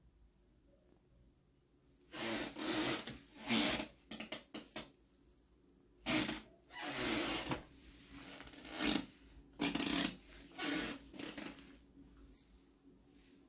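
Close rubbing and scraping noise in irregular bursts of a second or so, starting about two seconds in: handling noise rubbing on the microphone.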